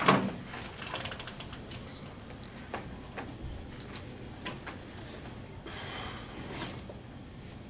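A single thump against a table right at the start, followed by scattered light knocks and paper rustling as papers are handled and people shift in their seats.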